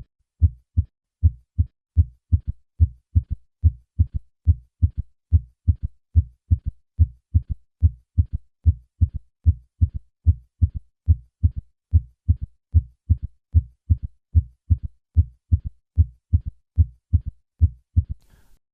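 Heart sounds as heard through a stethoscope, with a third heart sound (S3, ventricular gallop): short low thuds repeating steadily a few times a second, the extra soft early-diastolic beat after the first and second heart sounds.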